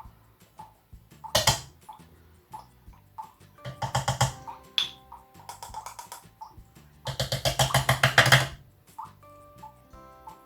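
Background music: a light percussive track with sustained notes and short loud bursts of rapid rattling strokes, the longest about seven seconds in.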